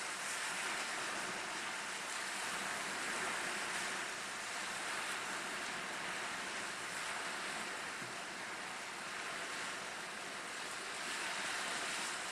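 Small waves breaking on a sandy beach and washing around rock breakwaters, with wind: a steady rushing wash that swells and eases gently.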